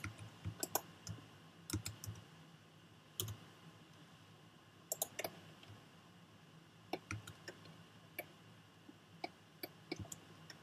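Irregular clicks of a computer mouse and keyboard, some coming in quick pairs or short clusters, with gaps of a second or more between them.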